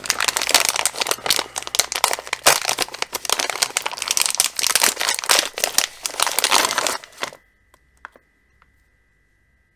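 Packaging crinkling and rustling as accessories are unwrapped, stopping abruptly about seven seconds in. A few faint clicks follow.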